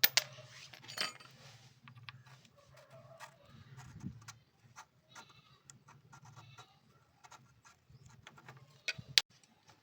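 Irregular metallic clicks, taps and knocks from hand tools and engine parts on an opened motorcycle engine, a few of them sharp and loud. Beneath them runs a faint low hum.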